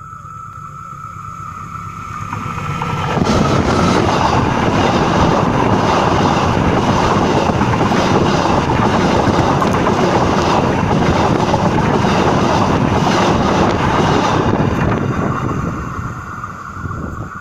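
Train running directly over a camera lying between the rails: the noise of wheels on rails swells over about three seconds, stays loud for about eleven seconds with repeated wheel clatter, then fades as the last car passes and the train moves away.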